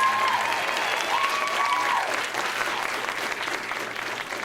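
Audience applauding, with a few high cheering calls over the clapping in the first two seconds. The applause slowly dies down.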